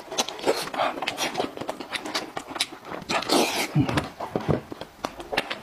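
Close-miked mouth sounds of a man eating meat from a sauce-covered sheep's head: a quick string of wet lip smacks and chewing clicks, with a brief louder breathy hiss about three seconds in.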